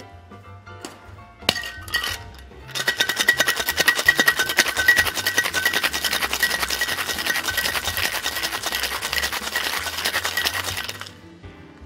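Ice rattling inside a metal tin-on-tin cocktail shaker shaken hard and fast for about eight seconds, with a steady ringing tone through the rattle, then stopping abruptly; a couple of sharp knocks come before the shaking starts. Shaking chills and dilutes the drink.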